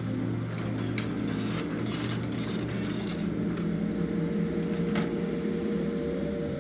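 Heavy-equipment engine running steadily, with a few knocks and clinks and a steady whine that comes in about halfway through.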